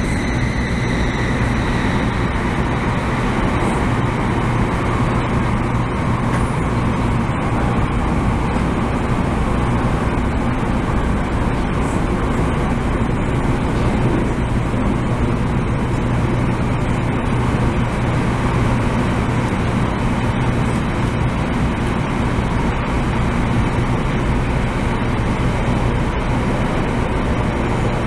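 Steady running noise heard inside a Taiwan High Speed Rail 700T carriage travelling at speed through a tunnel: a constant low hum under an even rushing noise. A high whine fades away in the first two seconds.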